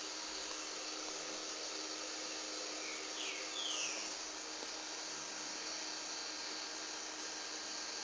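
A sleeper's quiet breathing between snores, over a steady whooshing hiss, with faint high whistling sounds about three to four seconds in.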